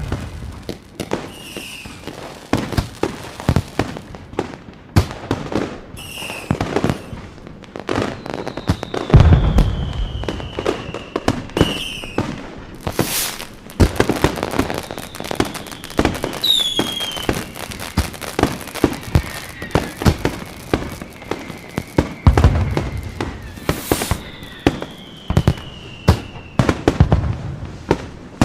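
Fireworks going off in quick succession: many sharp bangs and crackles, three deep booms, and several long whistles that slowly fall in pitch.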